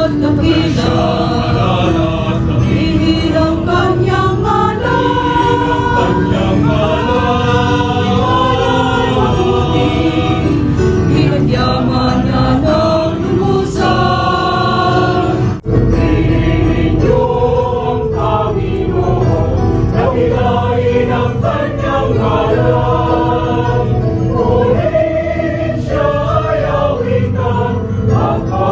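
Mixed choir singing a religious song together, conducted. The singing breaks off briefly about halfway through, then carries on.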